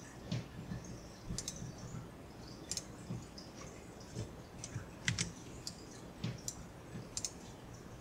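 About a dozen sharp clicks at uneven intervals from a computer mouse and keyboard.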